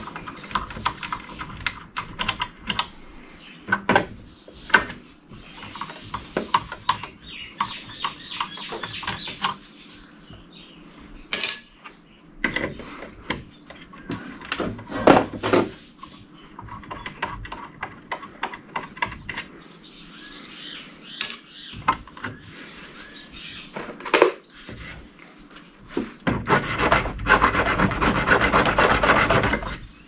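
Pliers and gloved hands working parts off a network switch's circuit board and metal chassis: scattered clicks, snaps and short metal scrapes. Near the end comes a few seconds of loud, continuous grating as a metal rail is worked free of the chassis.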